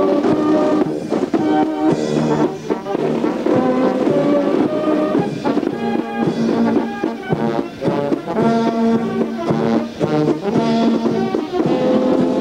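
Military brass band playing a tune, with held brass notes moving in a melody throughout.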